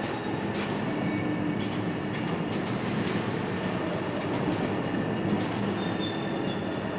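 Overhead cranes in a large shipbuilding hall working while a ship hull section is turned over: a steady mechanical hum and rumble, with brief high squeals now and then, echoing in the hall.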